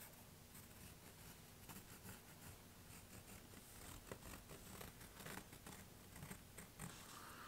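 Faint scratching of a pencil tracing around a paper pattern on the flesh side of 8-ounce veg-tan leather, in short strokes over near silence.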